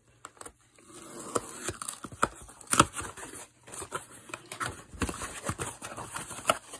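Razor blade cutting through clear packing tape on a cardboard box, then the cardboard flaps being pulled open: an irregular run of scrapes, tape crackles and small clicks, with a sharper click a little before the middle.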